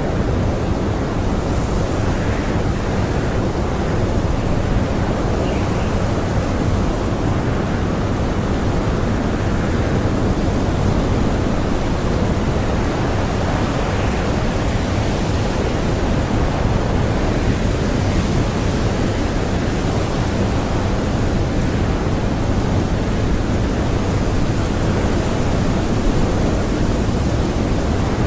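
Strong blizzard wind blowing: a steady, dense rush, heaviest in the low end, with no gusts or pauses standing out.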